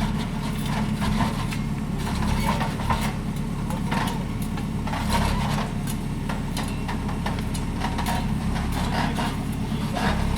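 A machine's engine running steadily, with frequent scraping and rattling strokes over it.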